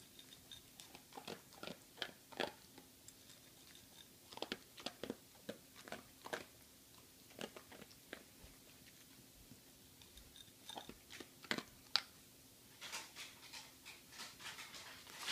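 Small dog crunching dry kibble: sharp, irregular crunches in spurts with short pauses between mouthfuls.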